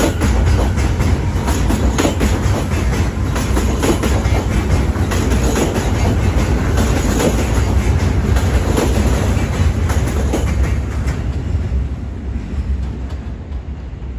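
R179 subway train running along the platform, its steel wheels clacking over rail joints, the sound fading over the last few seconds as it moves away.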